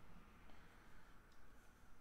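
Near silence: room tone, with a couple of faint clicks from a stack of trading cards being handled.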